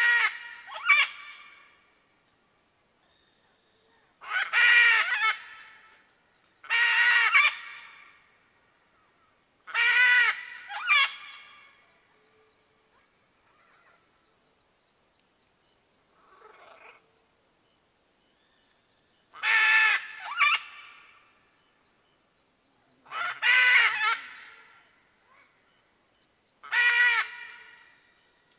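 Red macaw (arara-vermelha) giving loud, harsh squawks, one at a time every few seconds, several followed closely by a shorter second squawk, with a fainter call about midway.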